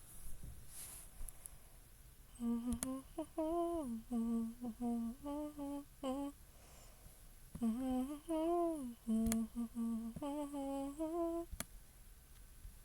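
A woman humming a short tune with closed lips, in two phrases of held notes with small slides between them. A few sharp clicks are heard along the way.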